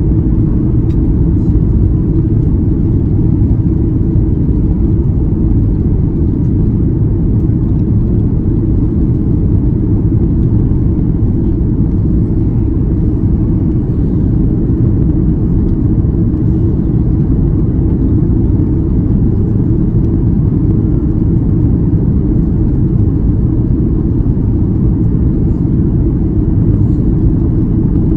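Cabin noise inside a Boeing 737-8 MAX on approach: a steady, loud, low rumble of airflow and engines, with the wing flaps extended.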